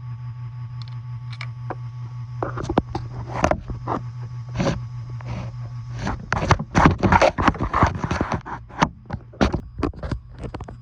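Scraping and clicking of hands working a rubber coolant hose back onto a car's thermostat housing. The handling noises come in scattered clicks at first, then grow busier and louder over the last few seconds, over a steady low hum.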